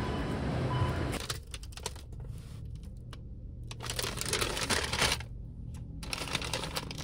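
Brown paper bags crinkling and rustling in bursts as a hand handles them, over a low steady hum. For about the first second there is only the noise of a busy hall.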